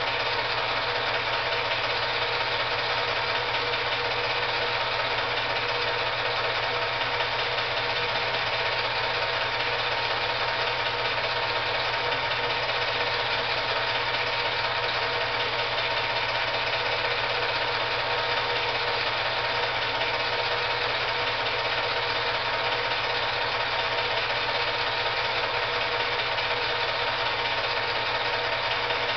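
8mm film projector running: a steady mechanical whir with a constant low hum, unchanging throughout.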